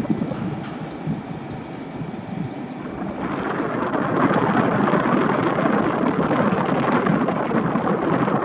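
Wind rumbling on the microphone, getting louder and brighter about three seconds in.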